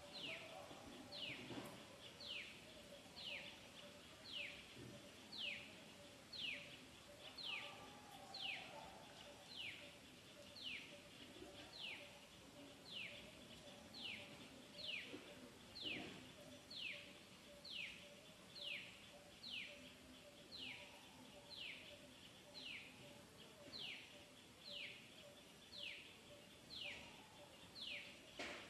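A bird repeating one short, high, downward-sliding call about once a second, evenly and without pause, over a faint steady low drone.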